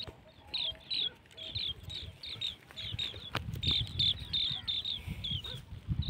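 Goats browsing dry desert shrubs close by: low rustling, crunching and steps that grow louder from about halfway, with one sharp click. Over this a small bird chirps repeatedly in short high notes, about three a second.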